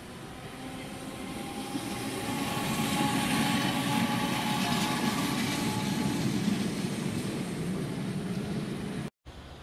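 Hiroshima Electric Railway streetcar no. 1905 passing close by on grass-covered track: wheel-on-rail rumble with a steady motor whine, swelling to its loudest a few seconds in as the tram goes by, then easing as it moves off. The sound breaks off abruptly near the end.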